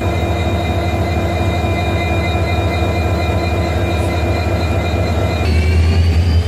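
Diesel locomotive engine running close by with a heavy, steady low rumble. About five seconds in its note rises and grows louder as the engine revs up.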